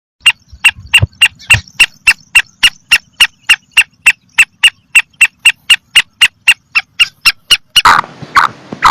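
Black francolin (kala teetar) calling: a fast, even run of short, sharp, high notes, about three to four a second. Near the end it changes to lower, harsher calls over a background hiss.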